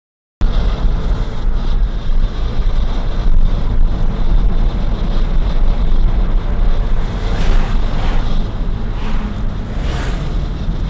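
Car in motion heard from inside the cabin through a dashcam microphone: a steady rumble of engine and tyre noise at moderate road speed. It starts suddenly about half a second in, and swells briefly twice near the end as oncoming vehicles pass.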